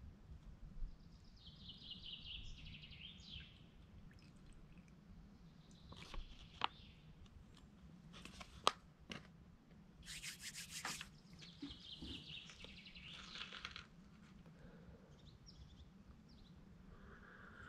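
Faint rustling and crinkling of a paper coffee packet handled over a mug, with a burst of crinkling about ten seconds in and a couple of sharp clicks. Birds chirp faintly in the background.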